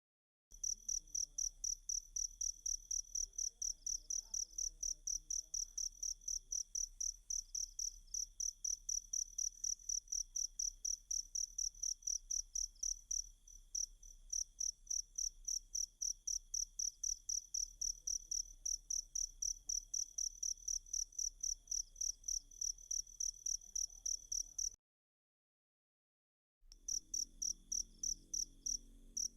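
A cricket chirping in a fast, even rhythm of about four high chirps a second over a faint steady lower hum. It cuts out abruptly for about two seconds near the end, then starts again.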